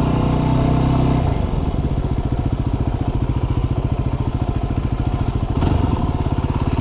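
Yamaha WR250R's single-cylinder four-stroke engine running, its revs dropping about a second in to a low, evenly pulsing beat as the motorcycle slows.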